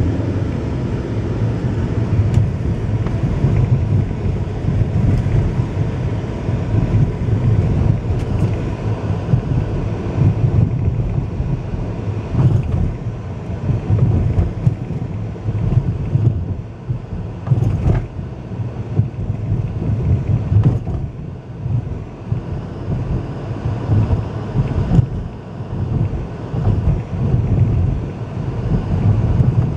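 Road and engine noise inside a moving car's cabin: a steady low rumble that rises and falls, with a few sharp knocks and creaks at scattered moments.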